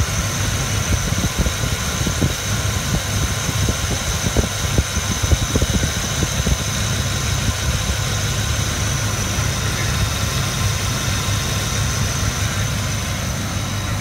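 A 2001 Land Rover Discovery II's 4.0-litre V8 petrol engine idling steadily, with a constant high-pitched whine above the engine note; the engine is suspected of a vacuum leak. A scattering of soft low knocks comes in the first half.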